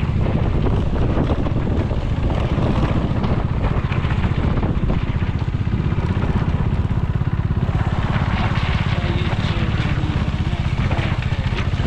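Motorcycle engine running steadily while riding, a continuous low drone of fast, even firing pulses.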